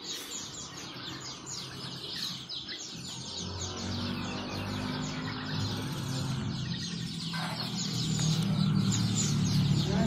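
Dense, continuous chirping of many caged birds, lots of short, quick, high calls overlapping. About a third of the way in, a low steady hum comes in underneath and grows louder toward the end.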